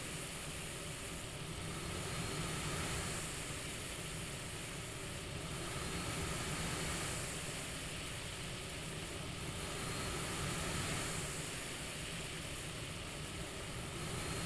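CPAP machine airflow: a steady hiss over a low hum, swelling and easing with each breath about once every four seconds.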